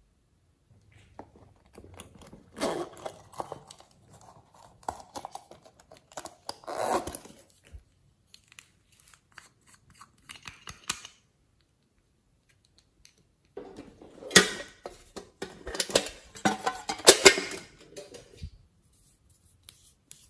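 Small plastic clay piping tubes handled close to the microphone: crinkling plastic and sharp clicks, in two bursts of several seconds each.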